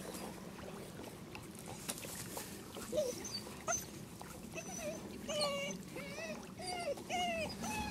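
Twelve-week-old puppy whining, a run of short high whimpers about two a second, starting about three seconds in. Before that, faint water noise.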